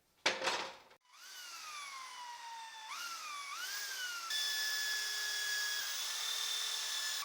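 A short noisy burst, then a small electric power tool's motor whining: its pitch sags, jumps up twice as the load changes, then holds steady.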